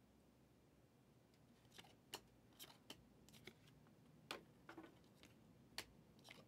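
Stack of Prizm football trading cards being flicked through by hand, one card at a time: faint, irregular sharp clicks and slaps of card against card, starting about two seconds in.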